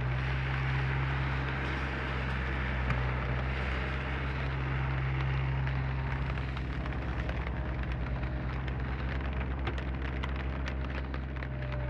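Komatsu PC30 mini excavator's diesel engine running steadily under a band of hiss. From about six seconds in the low note takes on a fast pulsing beat, with scattered short clicks over it.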